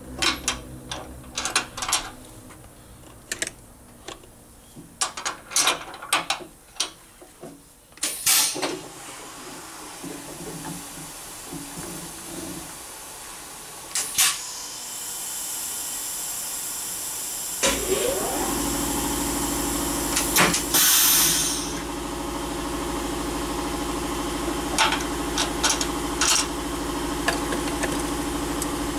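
Serdi 100 valve-guide machine: metal clinks and clicks as tooling is changed in the spindle, then hisses of compressed air. Past the halfway point its spindle motor starts and runs with a steady hum as a valve guide is drilled out.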